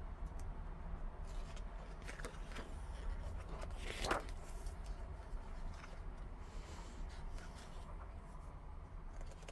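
Large photobook's thick glossy pages being turned by hand: soft paper rustling, with one louder page swish about four seconds in.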